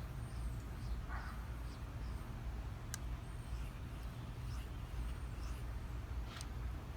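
A knife blade being stroked back and forth across a Shapton Pro water stone, faint short scraping strokes at an uneven pace over a steady low rumble.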